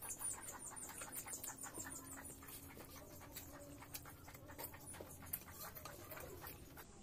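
Close-up eating sounds: wet chewing and lip smacking with many short mouth clicks as curry and rice are eaten, plus a rapid run of faint high ticks over the first two seconds or so.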